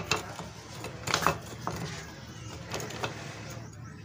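Light metallic clinks and clicks of a Honda CD motorcycle's gearbox gears and shafts being seated by hand in the open crankcase. A cluster of them comes about a second in, with a few more later, and it goes quieter near the end.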